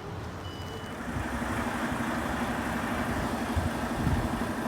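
A bus engine running close by, getting louder about a second in and then holding a steady hum. A reversing beeper sounds briefly at the very start.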